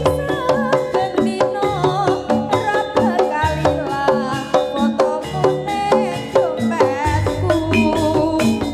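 Live jaranan accompaniment music: Javanese gamelan-style percussion playing a fast, steady beat under a wavering melody line, with a deeper bass sound coming in near the end.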